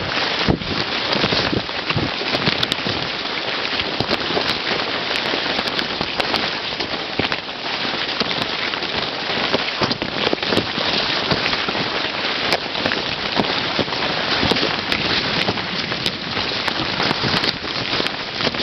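Corn leaves and stalks rustling and swishing hard against the camera as someone pushes through a cornfield at a run: a dense, continuous crackle, loud and close, with many sharp snaps.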